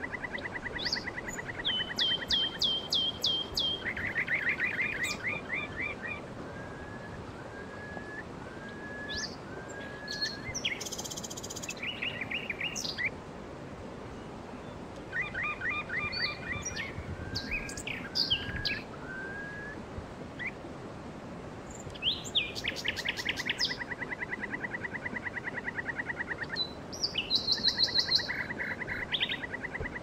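Several songbirds singing in turn: fast even trills, high chirps and a run of short slurred whistles repeated about once a second, over a steady background hiss.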